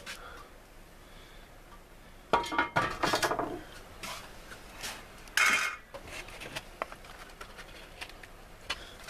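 Cast iron Dutch oven lid handled with a metal lid lifter: a quick run of clanking, ringing metal-on-metal knocks about two seconds in, and one more loud clank about five and a half seconds in. Light taps and scrapes follow as apple crisp is scooped out of the pot.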